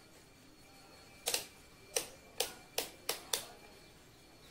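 Rotary range-selector dial of a digital multimeter clicking through its detents as it is turned. About six sharp clicks come in quick succession from about a second in, the first a double click.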